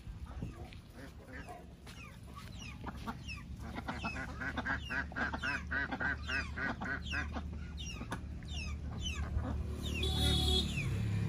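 Chickens calling: many short, falling chirps throughout, with a fast, even run of calls from about four to seven seconds in.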